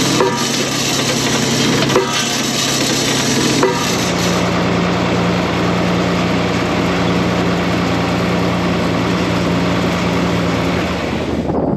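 Tractor engine running steadily, with three sharp knocks about a second and a half to two seconds apart in the first four seconds from a tractor-mounted hydraulic post pounder driving a wooden fence post. After the third knock the engine note shifts and keeps running as the tractor moves off.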